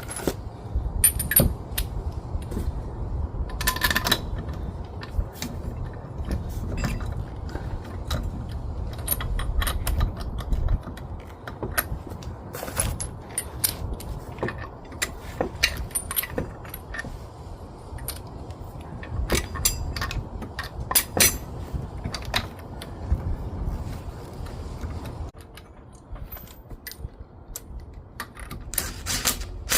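Scattered metallic clinks and rattles of loose wheel hardware, such as lug bolts and a slip-on spacer, being handled while a wheel is fitted, over a low rumbling background.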